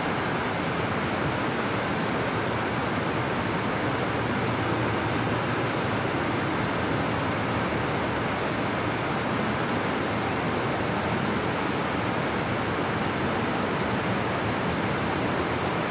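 Steady, even hiss with a faint high whine running through it, with no speech, during the silence of a guided meditation.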